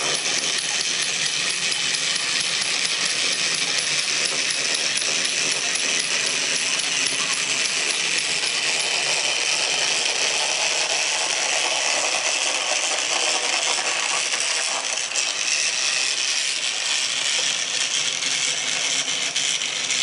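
Clockwork wind-up toys, a walking robot and a caterpillar, whirring and rattling as their spring motors run down, a steady dense mechanical clatter.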